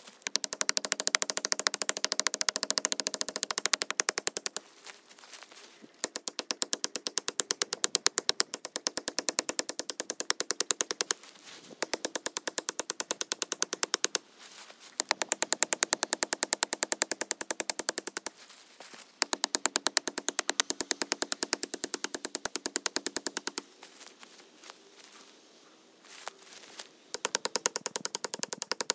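Hafted stone axe chopping into a black walnut sapling's trunk: sharp wooden blows coming very fast, many a second, in runs of a few seconds with short pauses between.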